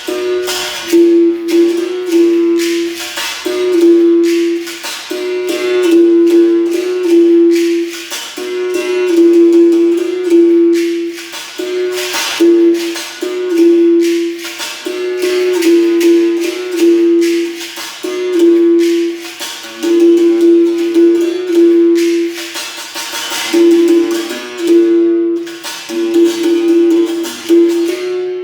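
Berimbau played with a caxixi rattle: a steady rhythm of struck notes on its single wire, the pitch stepping back and forth between two close notes, with the rattle's shake on the beats.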